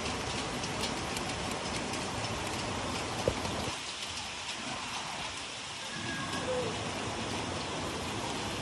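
Steady rain falling and pattering on surfaces, with a single sharp tap about three seconds in.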